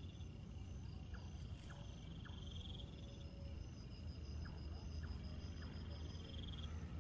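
Insects trilling at night: a steady high, pulsing trill that swells in short bursts a few times, with a few faint short chirps over a low steady hum.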